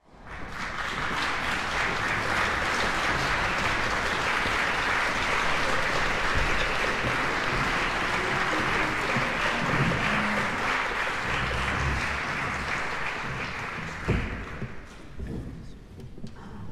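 Audience applauding, then dying away about fifteen seconds in, with a single sharp knock just as it fades.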